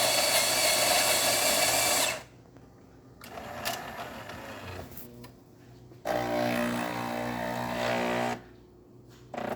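Jura A1 super-automatic espresso machine making a shot. Its built-in grinder runs with a high whine and stops about two seconds in. Quieter clicks and whirring follow, and about six seconds in a steady hum sounds for about two seconds.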